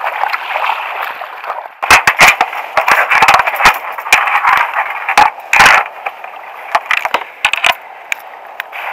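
Sharp knocks and clatter of a plastic sit-on-top kayak's deck hatch lid being opened and handled, in clusters around two seconds in and again around five to six seconds in, over a steady rushing hiss.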